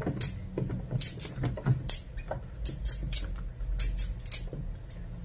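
Bananas being broken off their bunches by hand: an irregular string of sharp snaps and clicks as the stems break.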